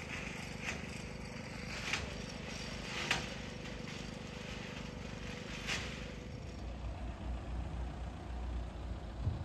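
Motor vehicle engines idling with a steady low hum as a car creeps onto a river ferry, the hum growing near the end, with four sharp knocks in the first six seconds.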